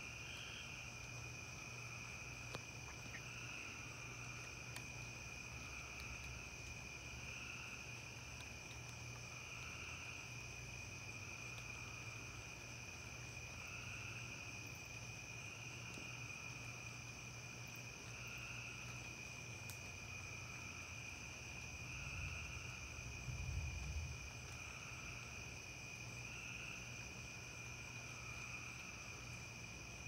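Night chorus of crickets and other insects: a steady high-pitched trill with a second call that swells about every two seconds. A low rumble rises briefly about three-quarters of the way through.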